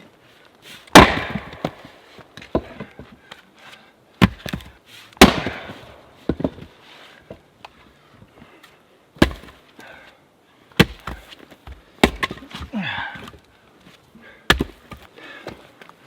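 Sharp wooden knocks and cracks, about eight of them at irregular intervals; the first, about a second in, is the loudest. There is lighter rustling and scraping between them.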